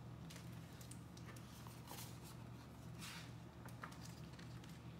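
Faint rustling of a paperback picture book's pages being handled and turned, a few brief soft swishes about two and three seconds in, over a steady low hum.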